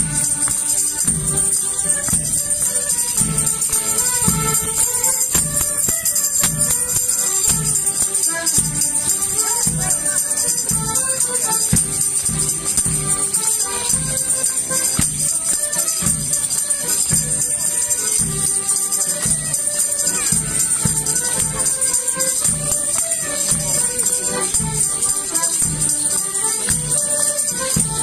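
Folk dance tune played for Morris dancing, a melody over a steady beat, with a continuous high jingling.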